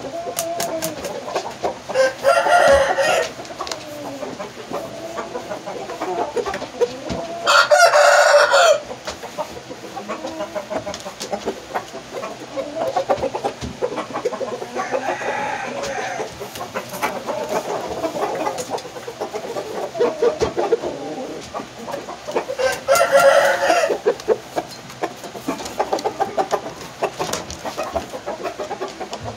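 Roosters crowing, three loud crows about a second long each (about 2, 8 and 23 seconds in), with softer clucking between them and light clicks of claws and scratching on the floor.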